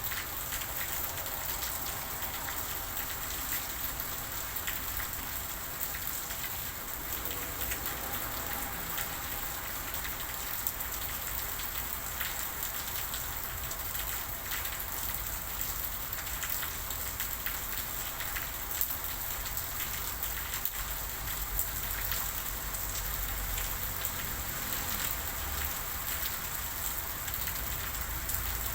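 Steady rainfall pattering on a surface, with many small drop ticks over a constant hiss and a faint low rumble underneath.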